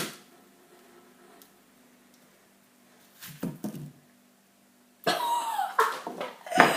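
Pliers smacking down on an apple once at the start, then two softer knocks about three and a half seconds in. From about five seconds a person coughs and makes wordless vocal sounds that fall in pitch.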